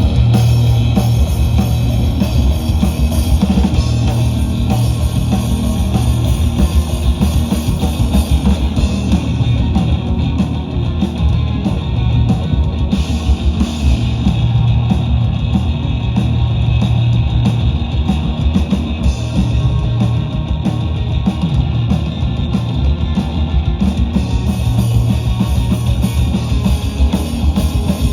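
A rock band playing a song live, with drum kit and electric guitar.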